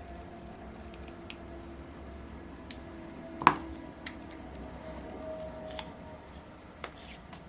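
Small metal parts and tools being handled during model-engine assembly: scattered light clicks and taps, with one sharp metallic clink about three and a half seconds in, over a faint low hum.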